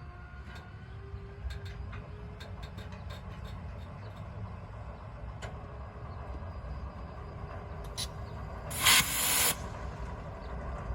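Iowa Interstate 508 diesel locomotive at rest: a steady low rumble with scattered light clicks, then a short, loud burst of compressed air hissing out about nine seconds in.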